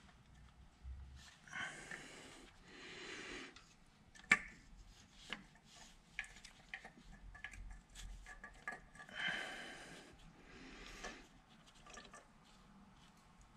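Hand work on engine parts: small metal clinks and knocks with rubbing and rustling as the thermostat and its housing are fitted, and one sharper clink about four seconds in.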